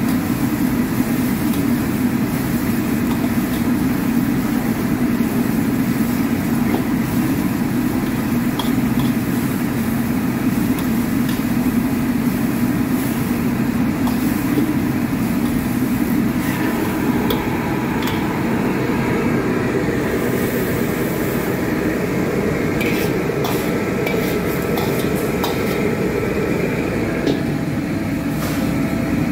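Steady roar of a gas wok burner, with a metal ladle scraping and clanking against a Chinese wok as vegetables are stir-fried. Scattered sharp metal clicks come in the second half.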